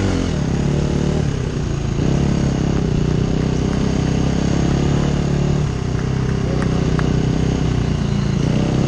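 KTM enduro motorcycle engine running at low revs as the bike rolls slowly along, the revs shifting a little a few times.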